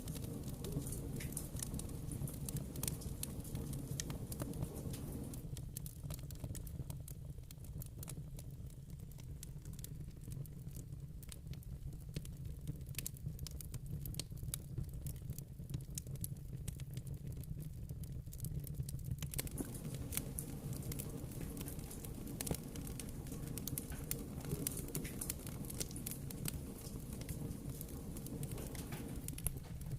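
Wood fire in a fireplace crackling, with many small irregular pops over a steady low rumble.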